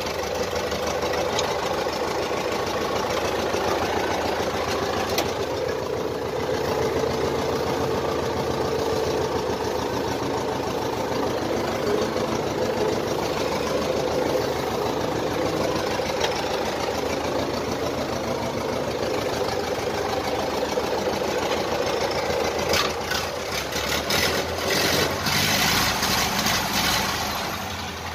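Old farm tractor's engine idling steadily, just after being started, with some clicking and rattling near the end.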